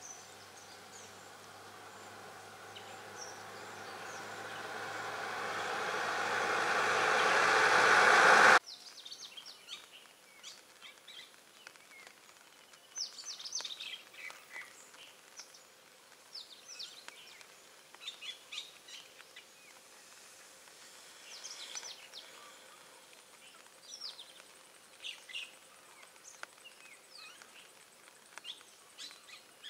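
A box truck's engine and tyres grow steadily louder as it drives up the road, then cut off suddenly about eight seconds in. After that, wild birds chirp and call in short, sharp notes every second or so.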